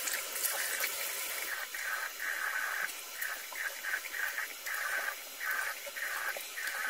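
Bathroom sink tap running, with rhythmic splashing about two to three times a second as water is scooped onto the face to rinse off foaming cleanser.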